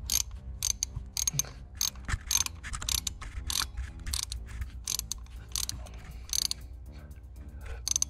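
Ratchet clicking in irregular runs, several clicks a second, as its handle is swung back and forth. It is turning a double nut to screw a fully threaded exhaust manifold stud into the cylinder head, and the stud is still threading in.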